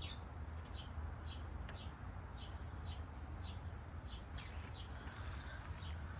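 A small bird chirping over and over, short, slightly falling chirps at about two a second, over a steady low hum.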